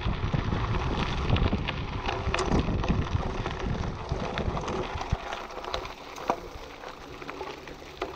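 Tandem mountain bike rolling over a bumpy grass-and-dirt track: knobby tyre noise with a constant scatter of small clicks and rattles from the bike, and wind rumbling on the microphone that eases about halfway through.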